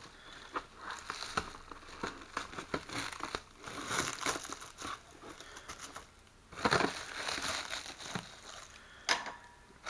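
Black plastic wrapping of a parcel crinkling and rustling in uneven bursts as it is cut with scissors and pulled open by hand. The crinkling is loudest about two-thirds of the way through.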